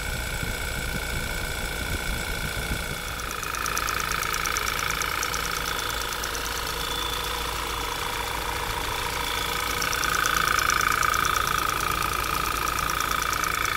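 Audi TT 2.0 TFSI turbocharged four-cylinder petrol engine running at or near idle, with a fast, even ticking over the top. It gets somewhat louder about three and a half seconds in and again about ten seconds in. The engine is being listened to for a suspect noise.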